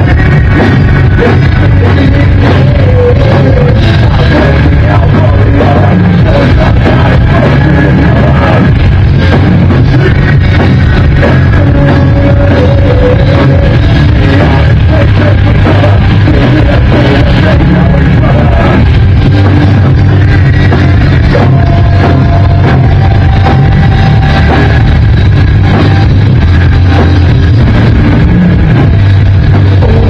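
Live rock band playing loud: a vocalist singing over bass guitar, guitar and drums.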